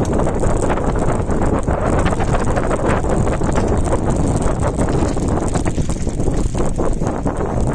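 Wind buffeting the microphone on a fast mountain-bike descent, with a constant clatter of the bike and its tyres jolting over loose, stony dirt.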